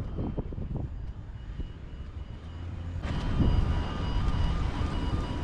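Wind buffeting the microphone in gusts. About three seconds in, a louder rushing engine noise with a steady high whine swells in over it.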